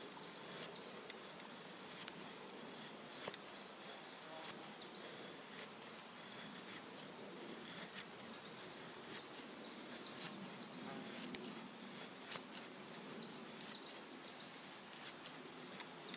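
Tops Tom Brown Tracker knife carving a wooden stick into a feather stick: faint scraping strokes of the blade shaving curls off the wood. Small high chirps repeat in short groups in the background.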